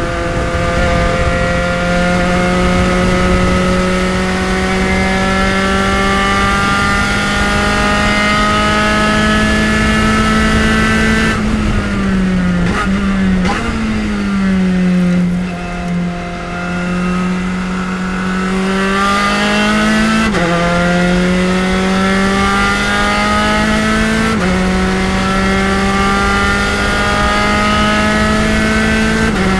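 Spec Racer Ford's four-cylinder engine under race load. The revs climb steadily for about eleven seconds, fall away sharply and stay low for a few seconds, then climb again, broken by three quick upshifts in the last ten seconds.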